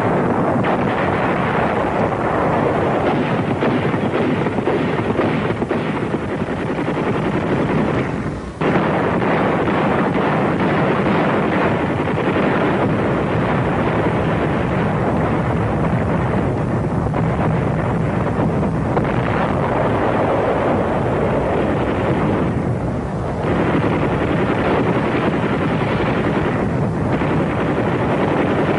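Dense, continuous din of gunfire and explosions from a pre-landing bombardment, dropping away briefly twice.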